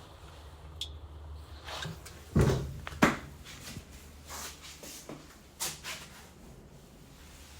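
Two dull handling knocks about half a second apart, with a few fainter clicks around them, over a low steady hum in a bathroom just before a toilet is flushed.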